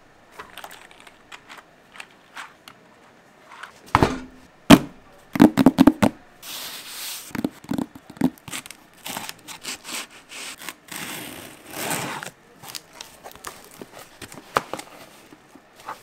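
A cardboard parcel and its plastic packaging being torn open and handled. There are scattered knocks and crinkling, and two longer tearing stretches, one about six seconds in and one about eleven seconds in.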